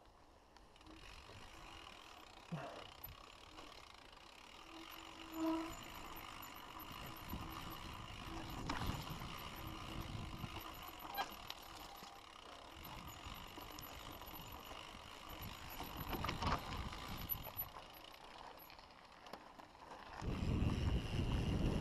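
Mountain bike ridden down a dirt singletrack: tyres on dirt and the bike rattling and knocking over bumps. Wind noise on the microphone gets much louder near the end as the bike rolls fast onto a rough stone road.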